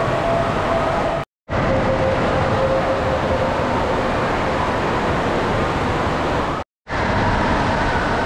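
Steady roar of an indoor waterpark hall, running and splashing water echoing under a high roof. It cuts to silence twice for a split second.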